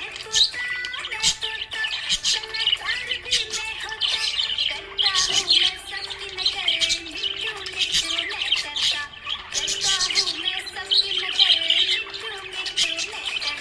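Budgies chirping and chattering in quick, continuous runs of short high chirps, over background music with a sustained melody line.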